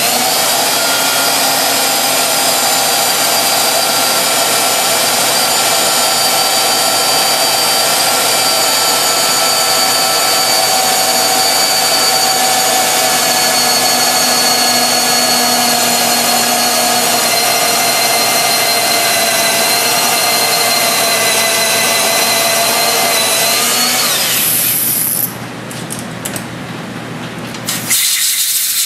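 Handheld electric drill running steadily under load, boring the 10 mm compression-release hole through a drill fixture's bushing into a Harley-Davidson Twin-Cam cylinder head, with a steady motor whine. About 24 seconds in the motor winds down and stops, and a brief loud burst follows near the end.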